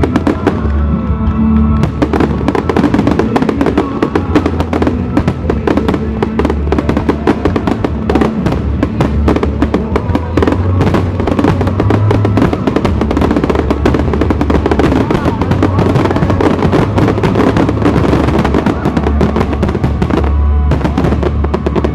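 A fireworks display: a dense, fast barrage of bangs and crackles that thins out near the end, over loud music with a deep bass line.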